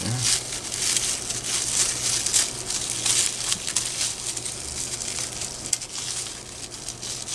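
Packaging being crinkled and crumpled by hand as a lock is unwrapped, an uneven run of rustling and crackling.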